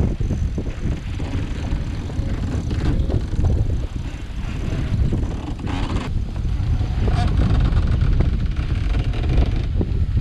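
Wind buffeting the microphone aboard a sailboat under sail: a heavy, uneven low rumble.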